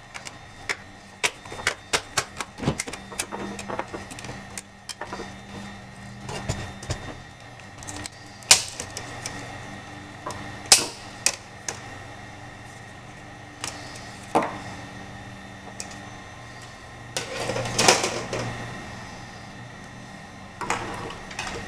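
Clicks and taps of hands working on an opened laptop: keys pressed and the plastic case and screen panel handled. The clicks come quickly in the first few seconds, then more sparsely with a few sharper knocks, over a faint low hum.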